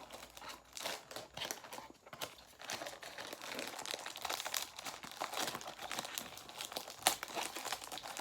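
Gift wrapping crinkling and rustling as a present is unwrapped by hand, with many irregular crackles.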